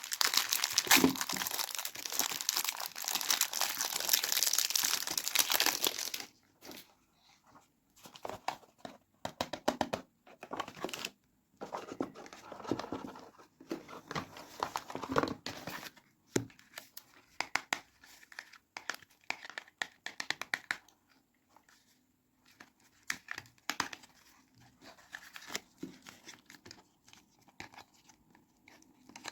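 Soap packaging being torn open and crinkled by hand: a loud stretch of continuous tearing and crinkling for about the first six seconds, then scattered, softer crinkles and small clicks as the wrapping is handled.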